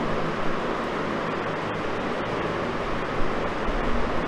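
Steady hiss of background noise with no other clear sound, and a brief faint knock about three seconds in.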